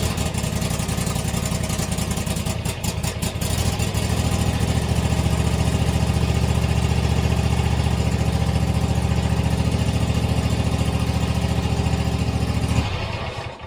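Husqvarna zero-turn riding mower engine running just after being started on a push-button override switch that bypasses its faulty safety sensors. It runs unevenly for the first few seconds, settles into a steady, louder run about four seconds in, and is switched off near the end.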